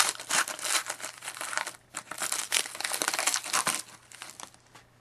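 Wrapper of a hockey trading-card pack crinkling and tearing as it is opened by hand, a dense crackle for about four seconds, then a few light ticks near the end as the crackle dies away.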